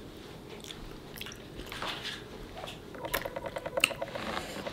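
Close-up chewing and lip smacking of fufu with egusi soup: soft wet smacks and clicks, with a brief run of rapid clicks a little after three seconds.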